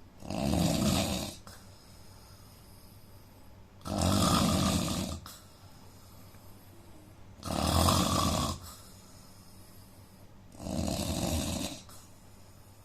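A man snoring in his sleep: four loud, rough snores, each about a second long, coming every three to three and a half seconds with quiet breathing gaps between. The uploader puts the snoring down to a problem with his nose.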